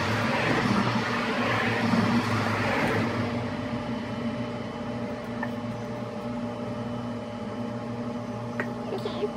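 Outdoor background noise: a steady low mechanical hum, with a louder rushing wash over the first three seconds that then fades, and a couple of faint clicks near the end.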